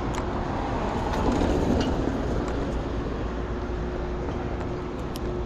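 Steady rumble of a vehicle in motion with a constant hum, swelling briefly about a second or two in.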